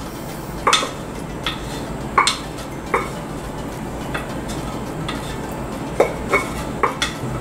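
Wooden spoon scraping thick jam out of a saucepan into a glass jar: a few scattered light knocks and scrapes, spaced irregularly.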